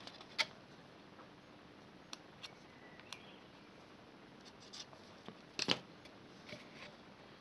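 Scattered soft clicks and crackles of a thin plastic drink bottle being handled and marked with a felt-tip marker, with the loudest short cluster about five and a half seconds in.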